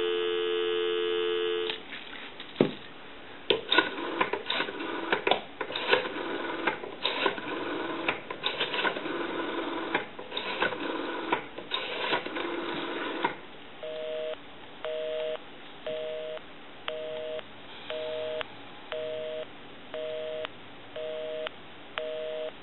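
Steady dial tone on the line of a Western Electric 500 rotary telephone, cut off as the rotary dial is turned. The dial then pulses out the number as groups of clicks for about eleven seconds. Then a busy signal beeps about once a second, a two-note tone switching on and off, because the line called is busy.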